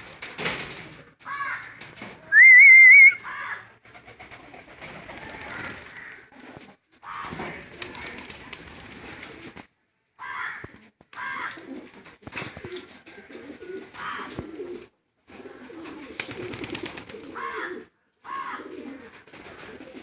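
Homer pigeons cooing in repeated low, pulsing calls while they feed, mixed with short higher chirps. About two seconds in, a loud, high, wavering whistle-like call lasts about a second.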